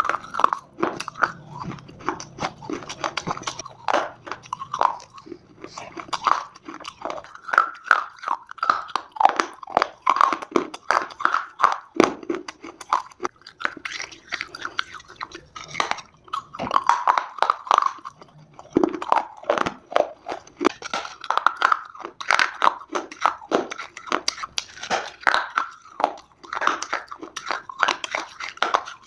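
Dry Multani mitti (fuller's earth clay) being bitten and chewed close to the microphone: a continuous run of crisp, irregular crunches with a couple of brief pauses.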